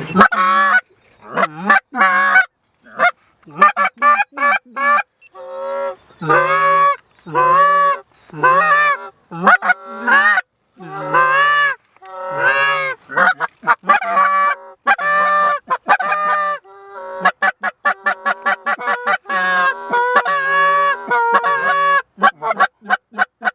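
Goose honking: a long, loud series of honks and drawn calls that turns into rapid short clucks in the last few seconds.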